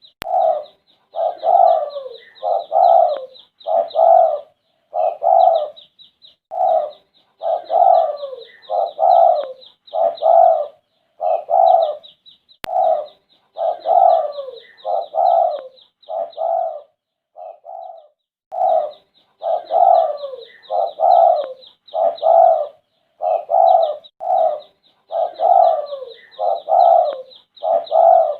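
Spotted dove cooing over and over, phrase after phrase of low coos, with a short pause about two-thirds of the way through. A fast, high chirping runs behind it for most of the time.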